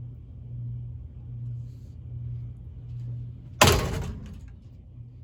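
Cheap ceiling fan motor running with a steady low hum that swells and fades about once a second, then a single loud whack about three and a half seconds in, dying away over half a second, as the spinning fan is struck.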